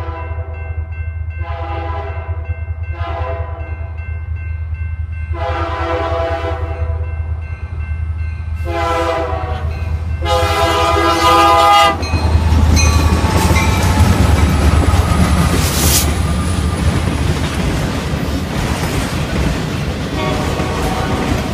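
A diesel freight locomotive's multi-note air horn sounds about six blasts of varying length as the train approaches a grade crossing, the standard warning for the crossing. About 12 seconds in the horn stops and the locomotives pass close by with loud engine noise and wheels clattering over the rails, followed by autorack cars rolling past, with a brief high squeal partway through.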